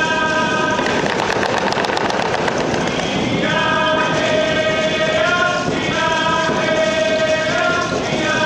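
A group of singers performing a Tsimshian dance song, holding long sustained notes, with a stretch of rapid beating about a second in.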